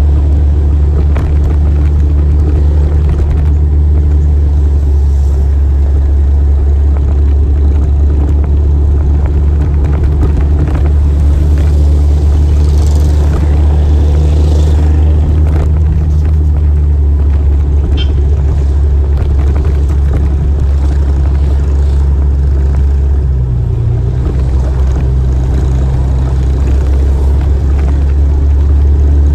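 Motorcycle running steadily on the move, a loud low rumble with a steady engine drone. The engine note changes about two-thirds of the way through.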